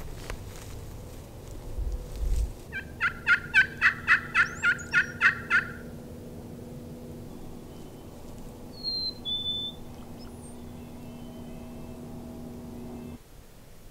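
A run of about eleven turkey yelps, evenly spaced at about four a second and loud, lasting just under three seconds. A couple of brief high chirps follow a few seconds later.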